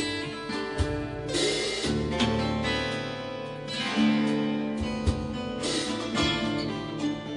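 Background music led by acoustic guitar, played in a steady rhythm.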